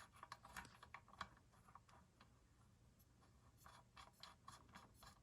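Faint, scattered light clicks and taps of small hand tools and metal parts being handled. Two short clusters of clicks with a quiet stretch of about a second and a half between them.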